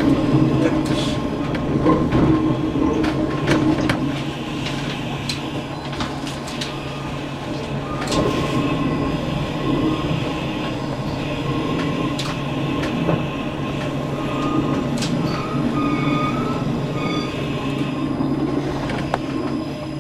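Tram running along street track, heard from on board: a steady rumble of wheels on the rails and motor hum, with scattered sharp clicks from rail joints and points. Short high wheel squeals come about three quarters of the way through.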